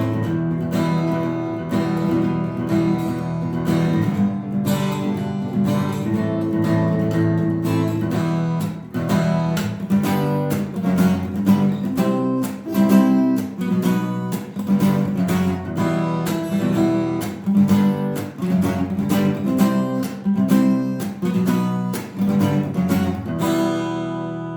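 Acoustic guitar strummed with a pick, playing a steady rhythm of changing chords, with the last chord left to ring out at the end.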